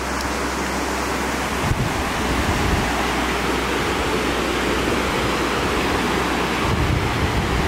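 The glacier-fed White River rushing over its bed of stones: a steady, even rush of water.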